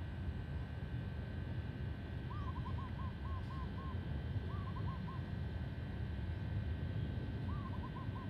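Steady low rumble of a distant AirAsia X jet airliner flying high overhead. Over it, a bird calls in three quick runs of short repeated notes, about two, four and a half and seven and a half seconds in.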